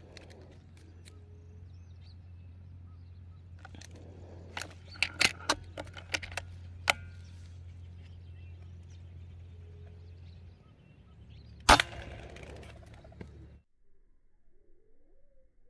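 A single sharp crack from a 5.5 mm PCP air rifle being fired, about three quarters of the way in, is the loudest sound. It is preceded by a quick run of a few sharp clicks, over a steady low hum that drops away near the end.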